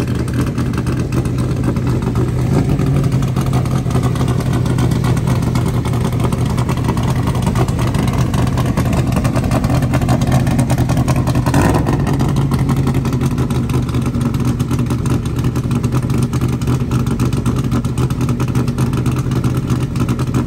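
Engine of a custom Toyota FJ-style Land Cruiser pickup running at low speed, a loud, steady, deep hum. A short sharp noise cuts through about twelve seconds in.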